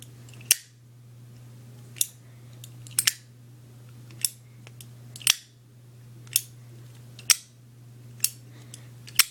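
Zippo lighter's metal lid clicking open and snapping shut again and again as it is flipped, about one sharp click a second, over a low steady hum.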